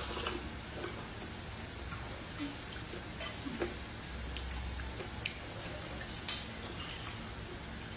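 Eating at a table: a scattering of single small clicks from crunchy chewing, chopsticks and ceramic bowls, unevenly spaced, over a faint low hum.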